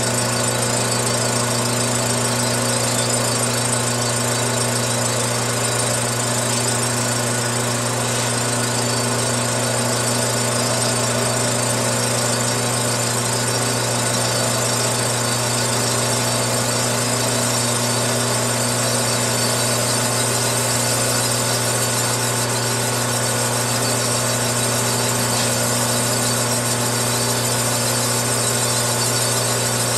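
Metal lathe running at a steady pitch, its cutting tool taking a facing cut across a 50cc two-stroke four-wheeler cylinder head to make the warped gasket face flat again.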